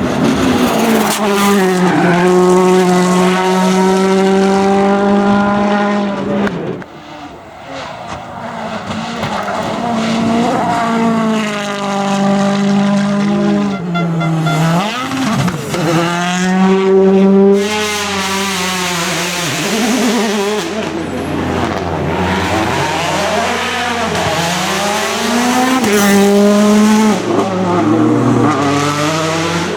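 World Rally Cars' 1.6-litre turbocharged four-cylinder engines revving hard on a tarmac stage, with tyre squeal. The engine note climbs and drops again and again through gear changes and braking, and dips briefly about seven seconds in before building up again.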